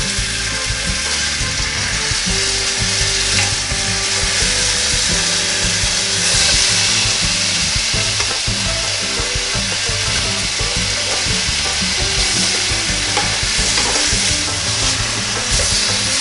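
Sausages sizzling in a NuWave Medley XL electric skillet as they are turned over with a spatula: a steady sizzle that gets louder for a moment now and then.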